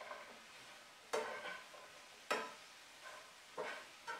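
Metal fork stirring breadcrumb stuffing in a frying pan, with four sharp clinks of the fork against the pan over a faint sizzle.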